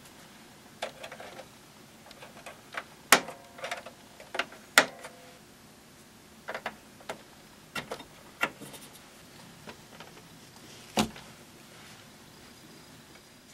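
Scattered clicks and knocks of small plastic and metal parts being handled during work on a boombox. The loudest knocks, about three and five seconds in, ring briefly, and another sharp knock comes near eleven seconds.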